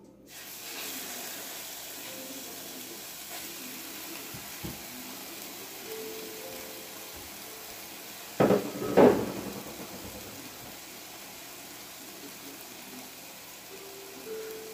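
Raw ground pork sizzling in a hot frying pan. The sizzle starts suddenly as the meat hits the pan and then runs on steadily. About halfway through there are two loud sharp knocks, half a second apart.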